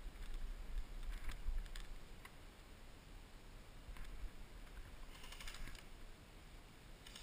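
Airsoft guns firing in short bursts of rapid clicks, one about five seconds in and another near the end, with a few single shots before, over a low rumble on the microphone.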